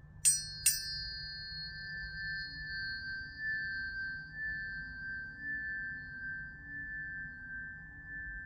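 Tuning forks struck twice in quick succession near the start, each strike giving a sharp metallic ping. A high ring follows and slowly fades over several seconds, over a lower steady pure tone that pulses gently in loudness.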